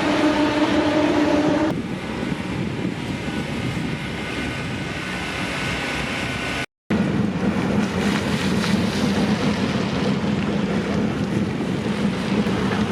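Steady motor hum with wind-like rushing noise. The hum's pitch changes about a second and a half in, and the sound drops out for an instant about two-thirds of the way through.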